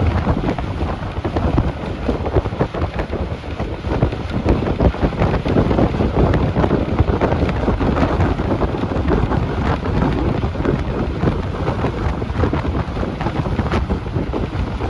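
Steady engine and road noise of a moving bus heard from inside, with wind rushing over the microphone and faint rattles.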